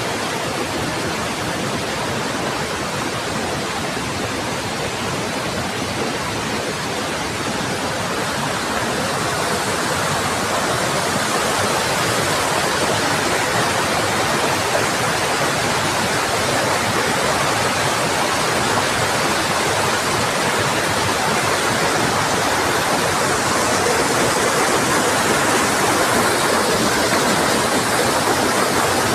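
Small rocky waterfall: water pouring over and between boulders in a steady rush, slowly growing a little louder over the first ten seconds or so.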